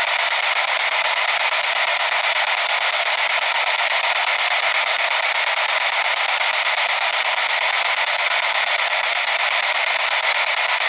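P-SB7 spirit box sweeping through radio stations: a steady hiss of radio static from its small speaker.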